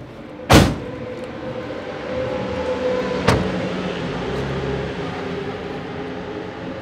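Engines running steadily in the background, with one loud sharp bang about half a second in and a lighter click about three seconds later.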